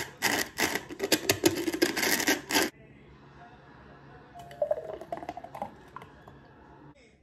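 The rim of a cup rubbed and twisted in a bowl of sugar: a loud, gritty scraping that stops about three seconds in. After it, a drink is poured more quietly from a pitcher into the cup.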